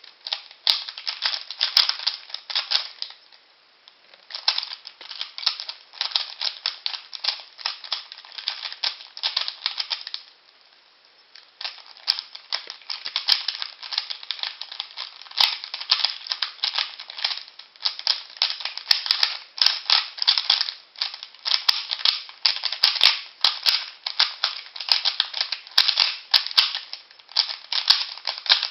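Rubik's Cube being turned fast by hand in a timed solve: rapid runs of plastic clicking and clacking as the layers turn, with short pauses about 3 s and 10 s in.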